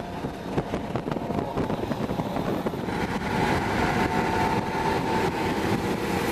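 Road and wind noise in a car driving at highway speed, a dense steady rumble with rapid flutter. About halfway through, a faint steady whine joins it.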